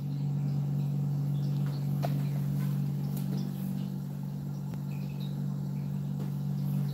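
A steady low hum, with a faint click about two seconds in.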